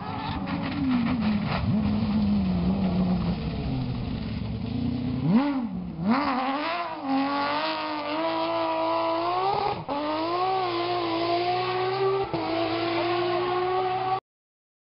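Porsche 997 GT3 rally car's flat-six engine at high revs. The pitch falls away at first, dips and blips about five seconds in, then climbs again with short drops as it shifts up through the gears. The sound cuts off abruptly near the end.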